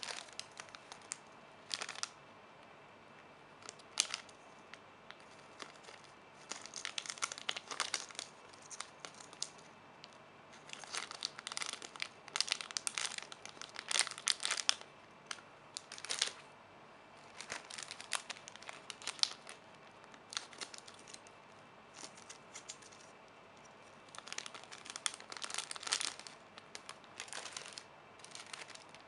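Crinkling plastic, likely the plastic bags that squishy toys are packed in, being handled in irregular bursts with short pauses between.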